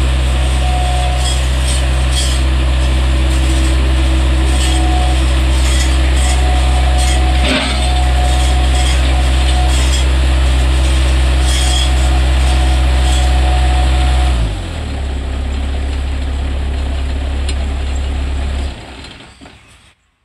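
Bobcat 763 skid steer's diesel engine running steadily, dropping to a lower, quieter idle about two-thirds of the way through, then shut off shortly before the end and dying away.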